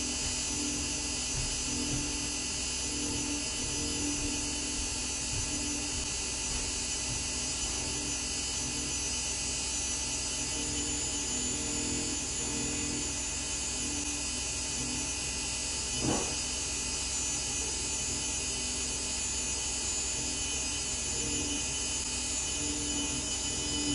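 Cordless endodontic motor handpiece driving a nickel-titanium file in the canal: a steady electric whine with a low hum that pulses on and off irregularly. There is a single sharp click about sixteen seconds in.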